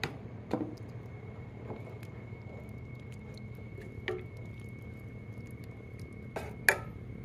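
Metal ladle stirring curry in a stainless steel pot, knocking against the pot a few times; the loudest knocks come near the end. A steady low hum runs underneath.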